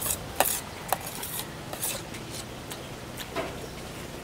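Eating sounds: irregular crunching and chewing with sharp clicks of utensils against dishes.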